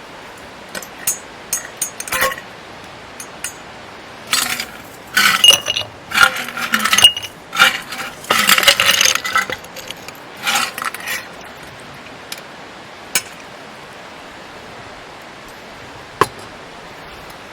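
Clinking and clattering of small hard objects being handled, in irregular clusters for about ten seconds, then a single sharp click near the end.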